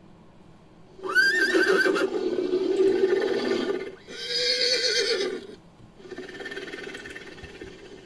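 A made-up creature call built from horse neighs and whinnies: three calls in a row, the first long with a rising then falling pitch sweep, the last one quieter.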